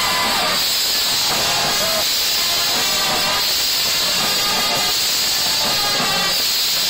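Marching band playing, its brass notes faint under a heavy steady hiss.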